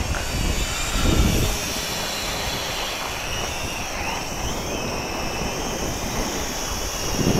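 Wind buffeting the microphone, heaviest in the first second or so, with the thin, wavering whine of a distant XK X300 quadcopter's motors as it is flown back against the wind.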